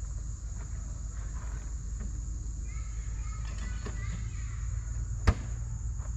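Steady high-pitched insect chorus from the surrounding woods over a low steady rumble, with one sharp knock about five seconds in.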